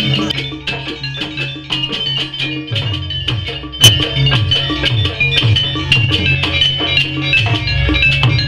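Traditional Banyuwangi ensemble music accompanying a barong dance: drums and metal percussion under a fast, pitched melody, with one sharp, loud strike about four seconds in.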